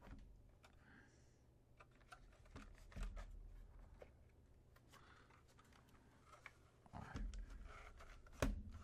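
Faint handling sounds of an opened Xbox One X console being turned over and set down on the work surface: a few light plastic clicks and knocks, the loudest ones about three seconds in, near seven seconds and just before the end.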